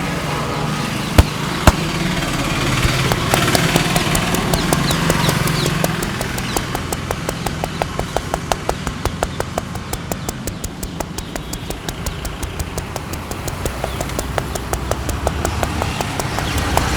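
Rapid, even hand strikes of a barber's tapping head massage, about six slaps a second, beginning about three seconds in. Two sharp, louder snaps come about a second in.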